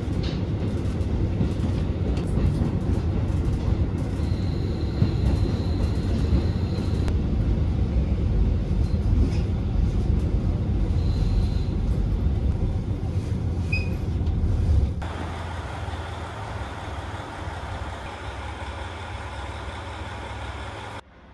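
Steady low rumble of a Japanese diesel railcar running on the rails and slowing into a station, heard from inside the carriage. About 15 seconds in it cuts to a quieter, steady hum beside a KiHa 40 diesel railcar standing at the platform.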